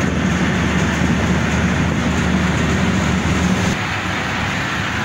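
City bus's engine running and road noise, heard from inside the passenger cabin while riding. About three and a half seconds in, the engine's low note drops away and the overall sound quietens a little.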